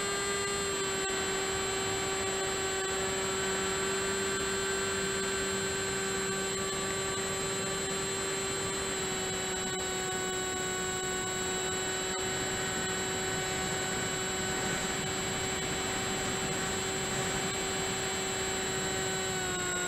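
Electric motor and propeller of an FMS Red Dragonfly radio-controlled model plane, heard from on board in flight: a steady whine with a haze of rushing air, its pitch stepping slightly down about a second in, around nine seconds, and near the end.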